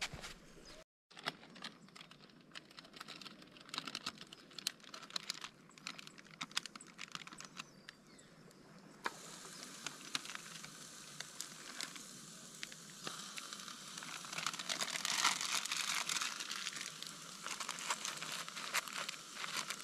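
Small fire of dry twigs crackling under a frying pan, a dense run of sharp pops. About nine seconds in, a hamburger patty starts sizzling in the pan. The sizzle grows louder over the following seconds while the crackling carries on.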